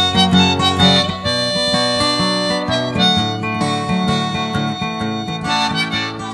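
Folk song instrumental break: a harmonica plays the melody over acoustic guitar.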